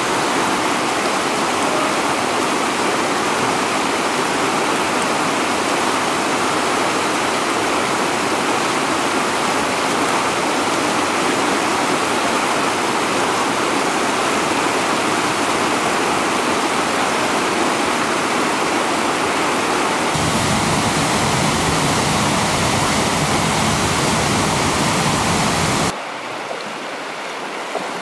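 Steady rushing of whitewater river rapids pouring over rocks. About 20 s in a low rumble joins it, and near the end the sound drops suddenly to quieter flowing water.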